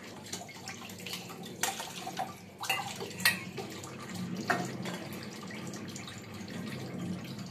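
Kitchen tap running steadily into a stainless-steel sink, with several sharp clinks of steel pots and utensils being handled while dishes are washed.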